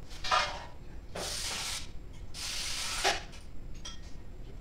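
Plastic packing material rustling and crinkling as it is handled, in three bursts of under a second each, with a light knock near the end of the last one.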